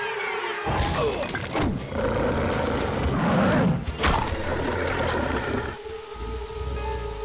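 Animated film soundtrack: music mixed with sound effects, with sharp hits about a second in and again about four seconds in.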